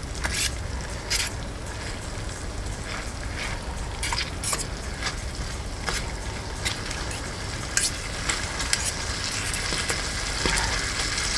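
Bacon sizzling as it fries in a small camp pot over a Solo Stove Lite wood-burning stove, stirred by hand, with scattered sharp clicks over a steady sizzle.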